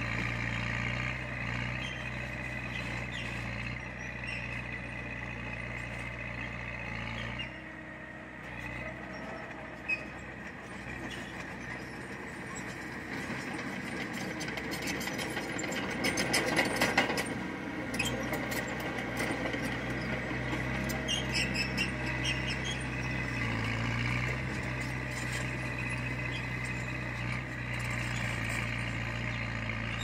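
Diesel engine of a Komatsu bulldozer running steadily, easing off about a quarter of the way in and picking up again a little past halfway. Around the middle comes a louder metallic rattling clatter, with a single sharp knock a little before it.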